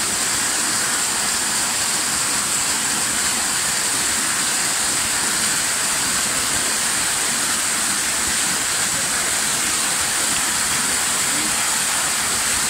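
Small waterfall cascading over rocks in a stream's headwater gully: a steady, unbroken rush of falling water.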